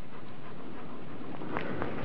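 A dog panting over a steady hiss, with two short sharp sounds near the end.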